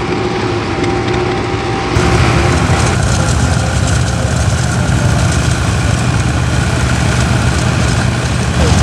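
Vintage tractor engine running steadily under load while working a field. About two seconds in, the sound cuts to a Fordson Major pulling disc harrows, and the engine turns louder and lower.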